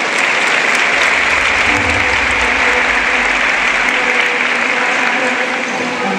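Audience applauding during a live acrobatics act.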